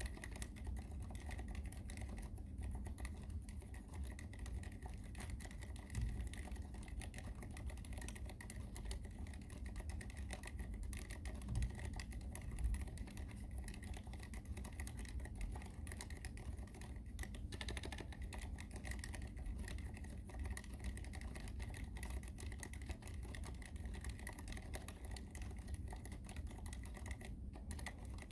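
Continuous typing on an ABKO AR87 full-aluminium mechanical keyboard with unlubricated Cherry MX Silent Red switches: a steady run of keystrokes, with a few louder strokes about six and twelve seconds in.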